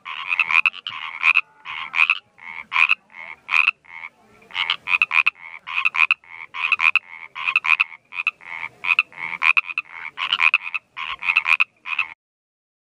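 A frog calling: short croaks repeated over and over, often in quick runs of two or three, stopping shortly before the end.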